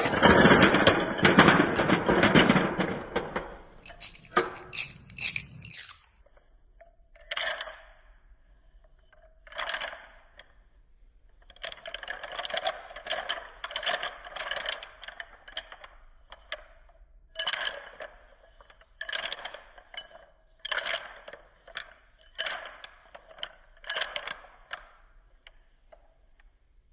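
Coloured chalk being crushed, slowed down: dense crunching and crumbling for the first few seconds, a few sharp cracks, then single crunches every second or two.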